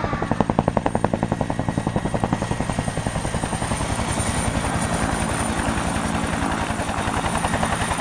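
Helicopter sound: rotor blades chopping rapidly and evenly over a steady engine hum.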